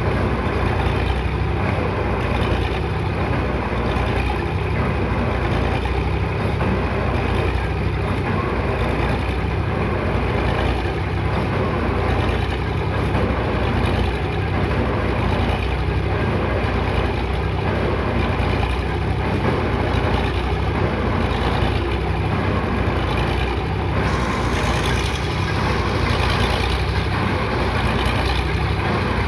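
Engine of heavy piling machinery running steadily, with a faint regular pulse about every second and a half; the sound turns hissier about 24 seconds in.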